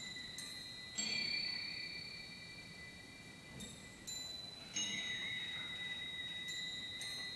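Soft, high metal percussion notes struck one at a time, about seven in all, each ringing on long and overlapping the next in a slow, sparse passage of a percussion concerto.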